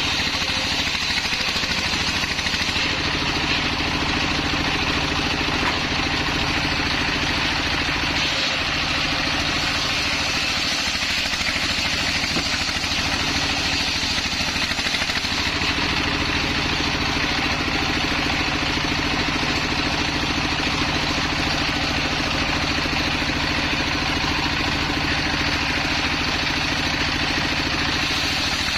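Stationary single-cylinder diesel engine running steadily under load, belt-driving a circular saw as a waru log is fed lengthwise through the blade. The engine's low tone shifts about 3 seconds in and again about 15 seconds in.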